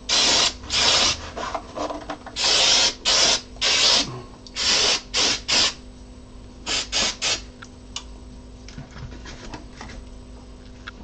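A hand-held spray hissing in a series of short bursts onto freshly glued 3D-printed plastic parts, in clusters of two or three during the first seven seconds or so. Light handling knocks follow.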